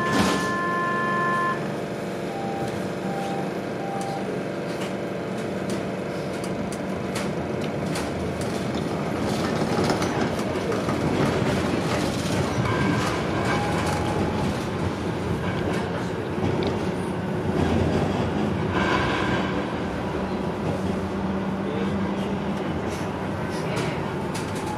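Street tram running along its rails, heard from inside the front of the car: a steady rumble of wheels and motors with clicks over the track and brief wheel squeals now and then. Near the start a held two-note tone stops and three short beeps follow.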